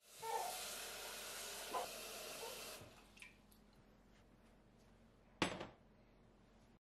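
Tap water from a pull-down kitchen faucet running steadily into an enamelled pot, shut off after a little under three seconds. A couple of seconds later the pot is set down on a glass cooktop with one sharp clunk.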